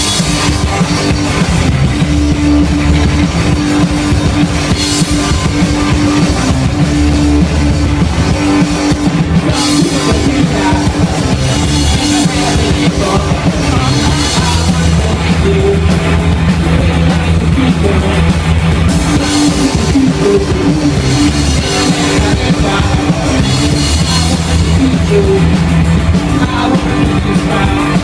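Punk rock band playing live: a fast, steady drum kit beat under loud electric guitars.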